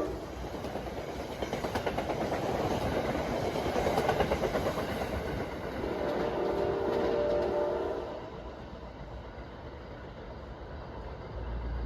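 NJ Transit commuter train passing, its wheels clattering quickly over the rail joints, with a short horn blast about six seconds in; the train noise falls away after about eight seconds.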